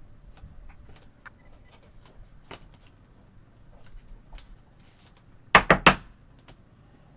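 Trading cards being handled on a table: faint scattered clicks and ticks, then three quick, sharp taps about five and a half seconds in.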